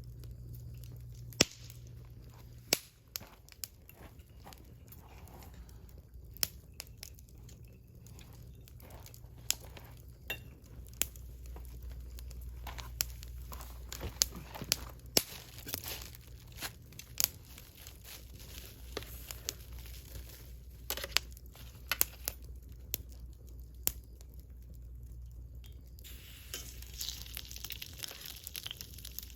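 Crackling and snapping from building a small wood fire: irregular sharp snaps scattered throughout, growing into a denser crackle near the end.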